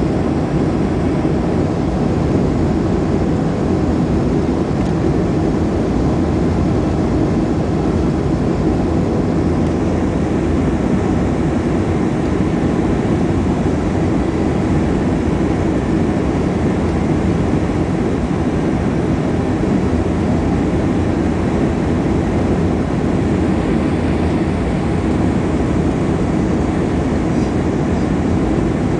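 Steady cabin noise of a Boeing 737-400 on final approach, heard from inside the cabin over the wing, with flaps extended: the CFM56-3 turbofan engines and airflow.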